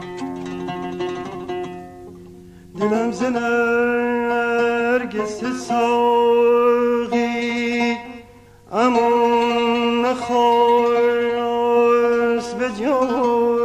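Persian classical music in dastgah Shur: a few plucked oud notes ring and fade, then from about three seconds in a male voice sings long held, melismatic avaz notes, sliding into each one. There is a short break near eight seconds before the next held phrase.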